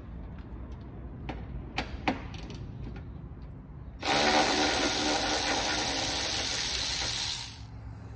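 Light metallic clinks of tools working under a car during an oil change, then a loud steady whirring hiss that lasts about three and a half seconds and cuts off.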